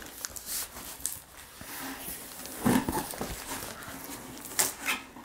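Cardboard shipping box and foam packing inserts of a tower speaker being handled and pulled apart: irregular scraping and rustling, with a couple of louder knocks about three seconds in and again near the end.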